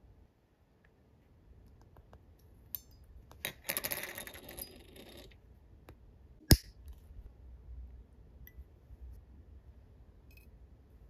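Side cutters snipping through a thin metal spoke wire: one sharp click with a short metallic ring about six and a half seconds in, the loudest sound here. Before it come about two seconds of scraping and rustling as the fine wire is handled against the plastic wheel rim, with a few light ticks.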